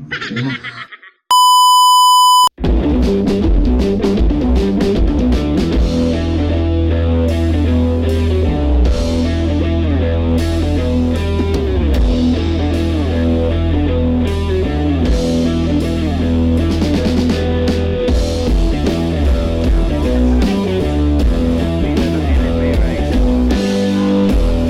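A loud, steady electronic beep lasting about a second, then rock background music with drums and guitar.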